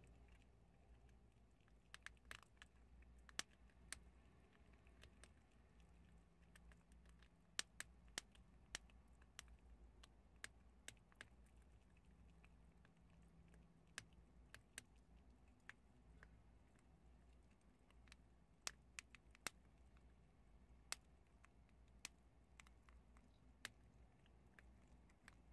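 Prairie dogs chewing chickpeas: sharp, irregular crunches and clicks of the beans being bitten and gnawed, several a second at times, over a faint low hum.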